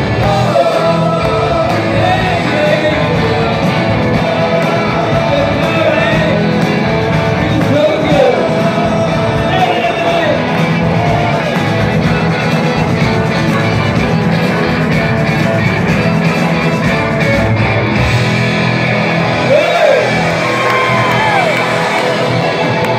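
Live rock band with electric guitars, bass guitar and drums playing a garage-rock song, with a male lead singer's voice coming in and out over it.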